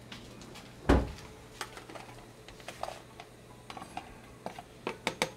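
Metal spoon scraping and tapping against a ceramic plate as grated cocoa is pushed off it into a pot of water. A dull thump about a second in, scattered light clicks, then quick, evenly spaced taps of the spoon start near the end.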